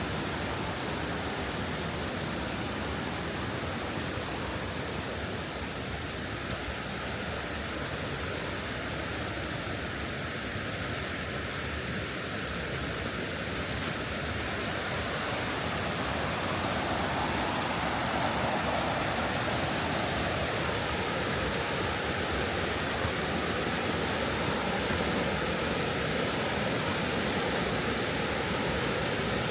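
Steady rushing of water in a mountain stream with waterfalls, growing a little louder about halfway through.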